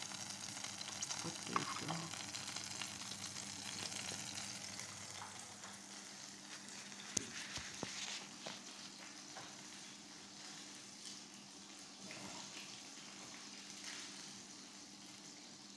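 Hot oil sizzling and crackling in a frying pan as diced potatoes are stirred in, with a few sharp clicks of tongs against the pan. The sizzle fades somewhat after the first few seconds.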